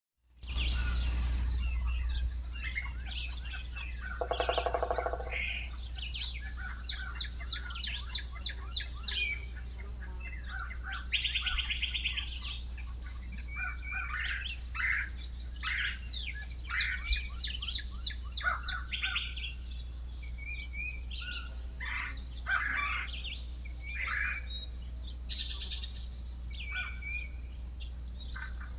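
Several birds chirping, calling and trilling in quick series, with a steady low hum underneath.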